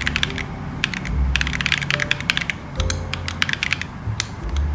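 Keystrokes on an Akko ACR Pro Alice Plus acrylic mechanical keyboard with stock Akko Crystal linear switches: clicks pressed in quick bursts separated by short pauses, as the keys are tested for how much the board flexes.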